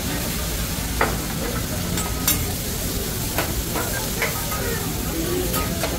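Food sizzling steadily on a hibachi griddle, with a handful of sharp clacks over it.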